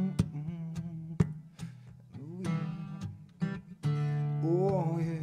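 Acoustic guitar strummed live, its chords ringing between sharp strokes across the strings.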